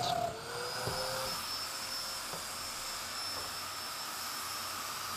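Power tool motor running steadily with an airy hiss and a faint high whine, its pitch sliding down slightly in the first second and then holding.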